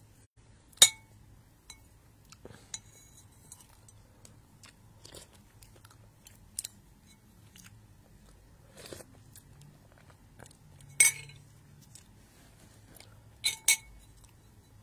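A person eating soup: faint chewing and mouth noises with a few sharp clinks of a spoon against a bowl, one about a second in, another about eleven seconds in and two close together near the end.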